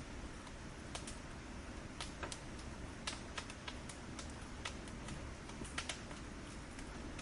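Wood fire crackling: irregular sharp snaps and pops, several a second, over a steady low rush of burning, with the loudest pops about three and six seconds in.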